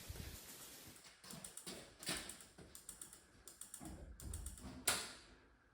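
Four-way flasher relay clicking in short repeated bursts, roughly every 0.7 s, as it cycles the flashers. A single louder thump about five seconds in.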